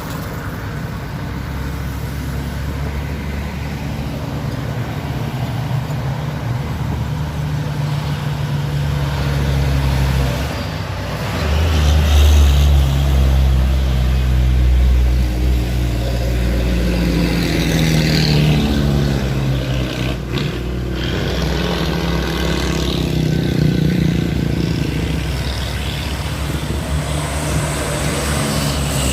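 Truck engine labouring on a steep uphill climb: a low, steady engine note that grows louder about twelve seconds in, then rises in pitch as the engine revs harder and falls back again.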